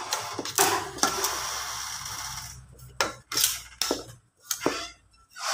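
Plastic rice paddle stirring and scraping grated coconut and taro in a pot: a steady rustle, then a few short sharp clicks and knocks in the second half.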